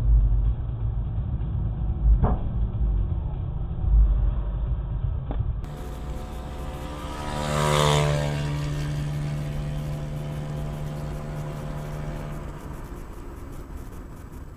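Car engine and road rumble picked up inside a car by a dashcam. At first it is muffled, with a few thumps. Then, about six seconds in, a steady engine note swells to a peak and slowly fades.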